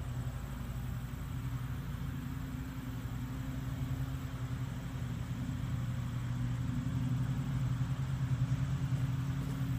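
Lawn mower engine running steadily, growing a little louder over the last few seconds.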